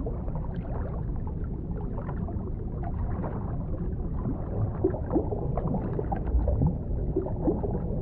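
Underwater ambience: a steady low rumble of water with bubbling and gurgling, many small ticks, and a few short rising chirps in the second half.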